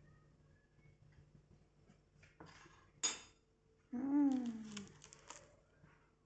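Spoon and noodle cup clattering: a short scrape, a sharp clink about three seconds in, then a brief falling tone and a few more clicks a second later.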